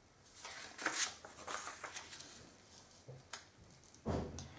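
A paper sheet rustling and sliding as it is turned over by hand on a cutting mat, quietly, with a few light ticks.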